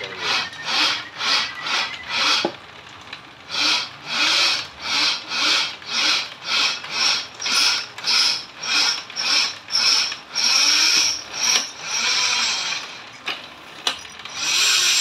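A bamboo strip-slicing machine with a spinning cutter rasps through bamboo fed into it. The sound pulses about twice a second, quickens, then runs continuously for a second or two about ten seconds in, with a few sharp clicks near the end.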